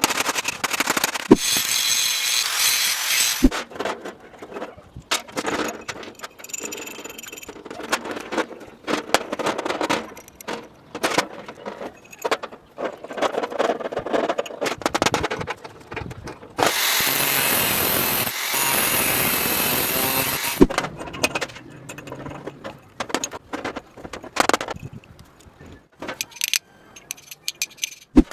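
Metal parts and hand tools being worked: irregular clinks, knocks and scrapes, with a steady, even noise lasting about four seconds past the middle.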